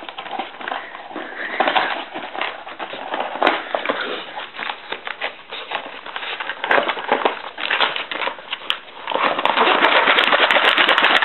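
Wheaten Scottish terrier tearing and rummaging in a cardboard box for a treat: irregular crackling and rustling of cardboard, growing denser and louder about nine seconds in.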